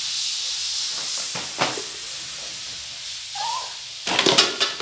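Steady hiss of background recording noise, with a short vocal sound about three and a half seconds in. Near the end comes a brief burst of crinkling rustle, which is the loudest thing here: a child handling a toy's plastic blister packaging.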